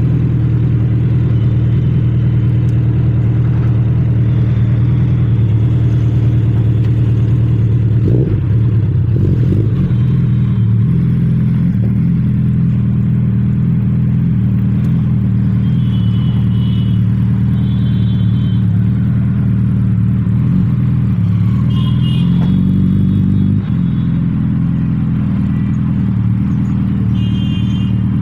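Suzuki Hayabusa's inline-four engine idling steadily through a Two Brothers Racing full aftermarket exhaust, a loud, even low note.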